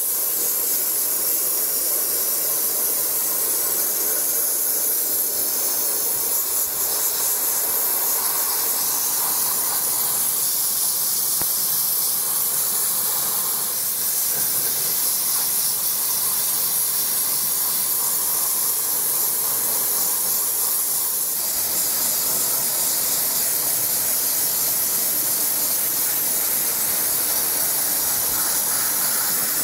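Dry ice blasting gun spraying a steady hiss of compressed air and dry ice pellets at close range onto a car's front suspension strut and wheel well, blasting off road grime. The tone shifts slightly about two-thirds of the way through as the nozzle moves.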